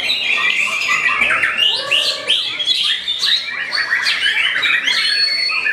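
White-rumped shama singing a fast, continuous run of varied notes that slide up and down, with other birds' song overlapping it.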